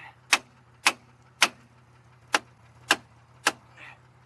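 Hammer blows on a 2002 Chevy Malibu's seized brake drum, struck to break it loose: six sharp strikes about half a second apart, three and then, after a short pause, three more.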